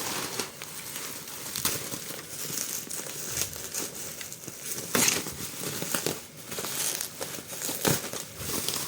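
Bubble wrap and plastic packaging being handled and pulled off the comic books, crinkling and rustling with irregular sharp crackles; a few louder crackles stand out.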